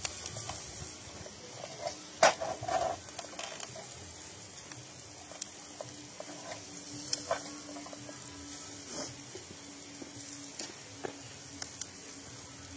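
Meat sizzling on a barbecue grill: a steady hiss with scattered sharp pops and clicks, the loudest about two seconds in.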